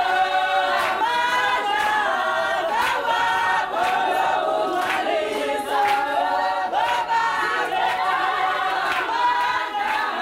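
A group of voices singing a cappella in harmony, a South African choral song, with a regular sharp beat under the singing.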